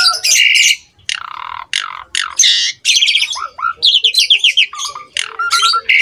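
Javan pied starling (jalak suren) singing a loud, varied song of harsh chattering notes, whistles and quick trills, with a fast run of rising notes about four seconds in.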